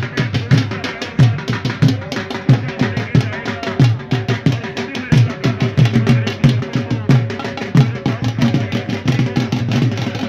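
Dhol drums beaten in a fast, steady rhythm: deep bass strokes that drop in pitch, with quicker sharp slaps between them.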